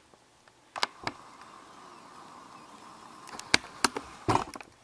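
Faint steady whine of a camcorder's zoom motor as the lens zooms out, with several sharp clicks and taps of handling, a pair about a second in and a cluster near the end.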